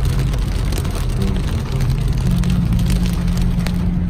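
Car interior noise while driving on a wet road: a steady low engine and tyre rumble, with a droning hum from about halfway through and a few sharp ticks.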